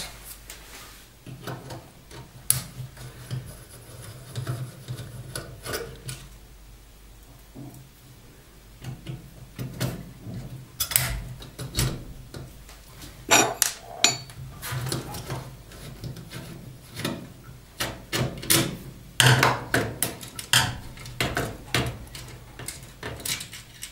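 Screwdriver backing out screws from a gas stove's sheet-metal front panel, with irregular metallic clicks, scrapes and knocks as the panel and timer mechanism are handled. The knocks come thickest about halfway through and again near the end.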